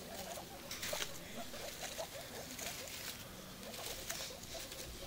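Baby guinea pigs giving many short squeaks while scrabbling in wood shavings and hay, with rustling of the bedding as a hand reaches in among them about four seconds in.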